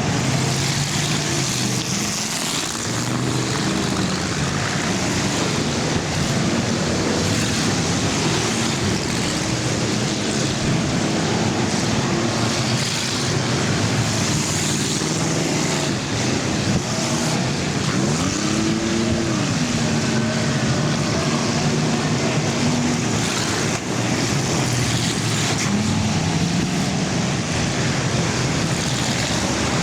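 Many full-size car engines running together in an enduro race, their pitches bending up and down as cars pass. About two-thirds of the way through, one engine revs up and falls back.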